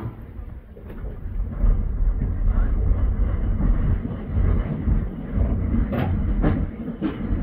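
Brisbane FM-class tram 554 moving along the track, heard from inside the car: a low rumble of wheels and running gear that builds about a second in and holds steady, with a few sharp knocks near the end.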